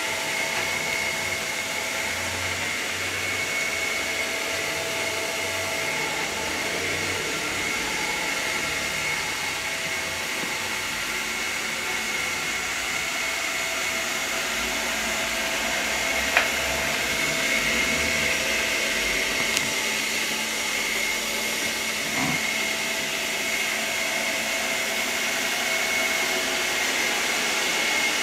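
ILIFE V5S robot vacuum running, a steady fan and motor noise with a high whine held at one pitch. A single sharp click just past halfway, and a fainter one a few seconds later.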